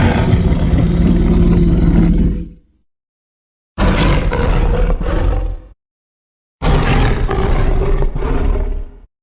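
Custom-made tyrannosaur roar sound effects played one after another: a long rasping roar dies away about two and a half seconds in, then two more roars of about two seconds each follow, with dead silence between them.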